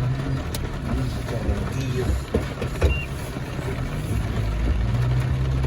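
Vehicle engine running with a steady low hum as it sets off, with a few short knocks.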